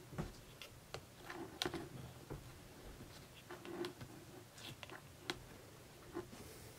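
Irregular light clicks and taps with short rustles from handling the tarantula's shipping container and its tissue packing while coaxing the spider out.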